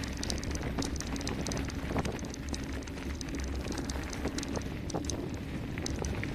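Mountain bike descending fast on a gravel forest road: a steady rumble of tyres and wind on the microphone, broken by frequent sharp rattles and clicks as the bike bounces over stones.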